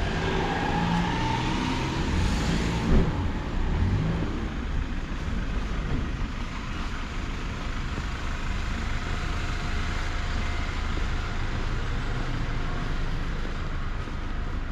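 Street traffic: a motor vehicle's engine passes close in the first few seconds, with a short thump about three seconds in. A steady traffic rumble follows.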